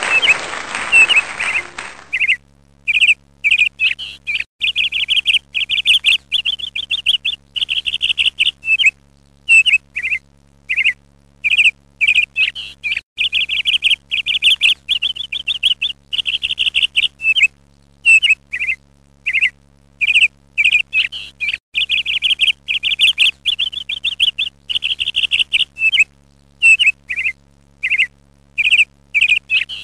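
Ducklings peeping: rapid, high-pitched cheeps in runs of a second or two with short breaks, over a faint low hum. A rushing noise dies away about two seconds in.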